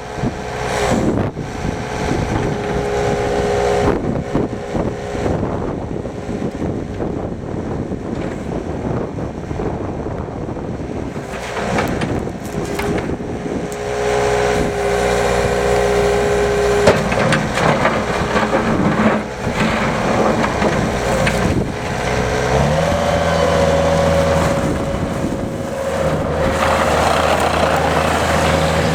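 Bobcat T300 skid steer loader's diesel engine running, with a steady whine above it. About three quarters of the way through, the engine speed rises and holds at a higher steady pitch.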